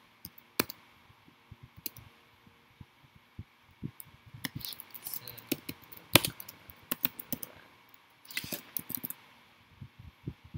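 Keystrokes on a computer keyboard, typed in short irregular runs with pauses between them; one key press about six seconds in is louder than the rest.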